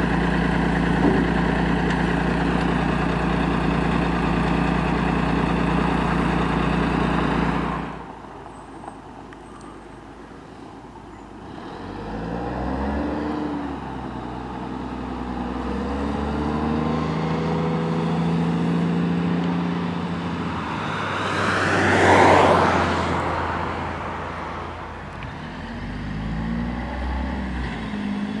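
1986 Peterbilt 310 garbage truck's diesel engine idling steadily up close; about eight seconds in the sound drops suddenly to the same truck heard from farther off. Its engine pitch then climbs and falls back several times as it pulls away through the gears toward the listener, with a brief loud rushing noise about two-thirds of the way through.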